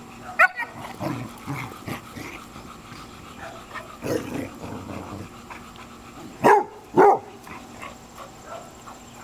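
Dogs playing rough, giving a few short yips and then two loud barks about half a second apart past the middle.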